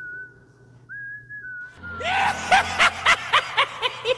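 A thin whistled tune for the first couple of seconds, then a rapid high-pitched cackling laugh of short 'ha' syllables, about four a second.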